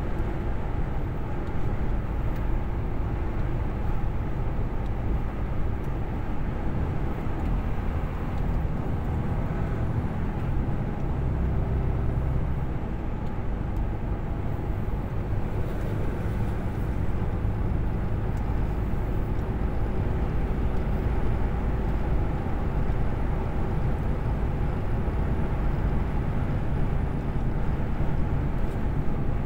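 Steady low drone inside a truck's cab at motorway speed: engine and tyre-on-road noise, unbroken throughout.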